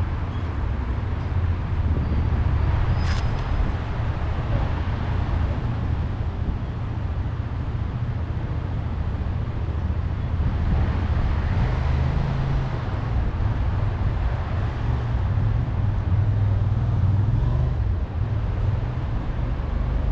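Steady city traffic noise, mostly a low rumble, with a brief sharp click about three seconds in.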